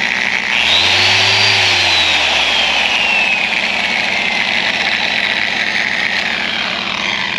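A Porter-Cable polisher with a 3-inch pre-moistened pad spins up about half a second in, then its motor whine falls slowly as it winds down, spinning excess moisture off the pad. A steady hum runs underneath.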